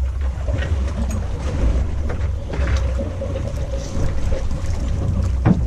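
Boat engine running at sea, a deep steady rumble with a thin hum above it, mixed with wind on the microphone. A single knock about five and a half seconds in.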